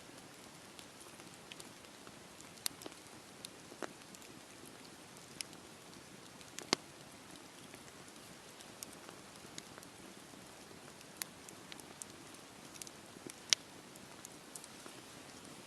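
Campfire burning: wood crackling with sharp, irregular pops over a steady soft hiss. The loudest pops come a little before halfway and again near the end.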